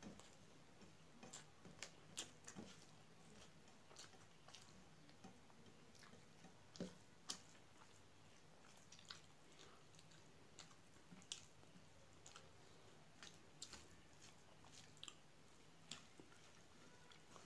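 Faint eating sounds: a person chewing rice and mixing it by hand on a steel plate, making irregular soft clicks and smacks, the loudest about seven seconds in.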